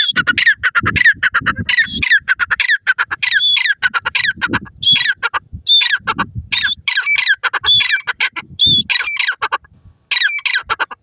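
Grey francolin calling: a loud run of harsh, repeated notes, each falling in pitch, delivered in quick phrases that stop near the end.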